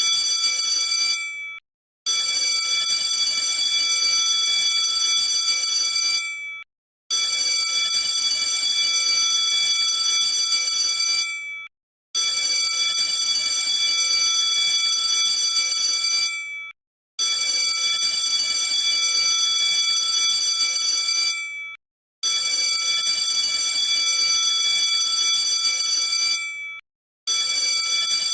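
Electric alarm bell ringing steadily in runs of about four seconds. Each run ends with a quick fade and about half a second of silence, and the pattern repeats about every five seconds.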